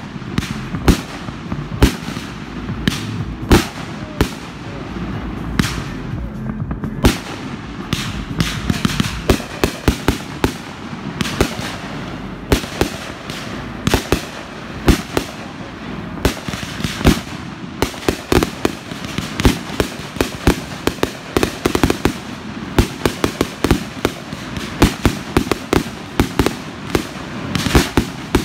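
Aerial fireworks going off in a continuous barrage of bangs and pops with crackle. A short lull comes about a quarter of the way in, and the reports thicken into a rapid string in the second half.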